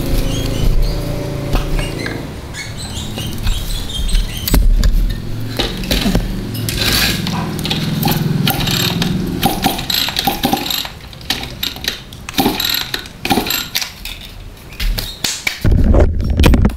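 Irregular metallic clinks, taps and knocks of a hand tool working on a small two-stroke engine and its loose parts, with a louder thump near the end.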